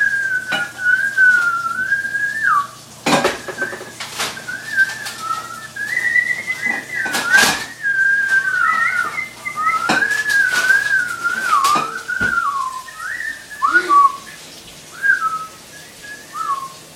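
A person whistling a long, wandering tune: a single clear tone sliding up and down with only brief breaks. Several sharp clinks of kitchen dishes cut in along the way.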